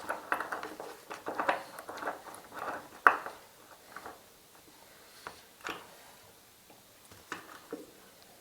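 Small handsaw cutting wood in short, irregular strokes for about three seconds, then a sharp knock, followed by a few scattered knocks and scrapes of wood being handled.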